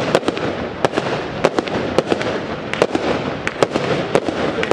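Aerial fireworks launching and bursting: a rapid, irregular string of sharp bangs, several a second, over a continuous hiss.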